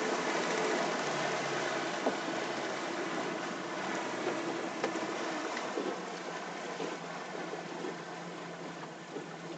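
Water rushing and splashing along the hull of a small powerboat under way at low speed, with the boat's engine running low underneath. The overall sound eases off gradually.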